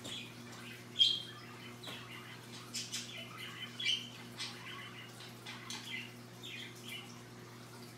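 Scarlet macaw making small chirps and clicks, with one short, sharp high squeak about a second in. A steady low hum runs underneath.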